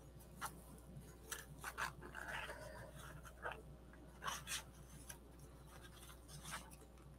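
Paper card-making pieces being handled and pressed down: scattered faint taps and clicks, with a short paper rustle about two seconds in.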